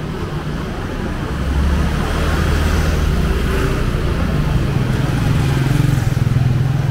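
A motor scooter's engine running close by, a steady low hum that starts about a second and a half in, rises in pitch about halfway through and grows louder, over the general noise of a busy street.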